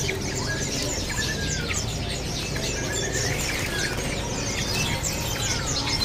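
A cage full of trucuk bulbuls and other birds chirping at once, a busy, overlapping stream of short, quick high calls, many of them falling in pitch. Wings flutter against the cage over a steady low hum.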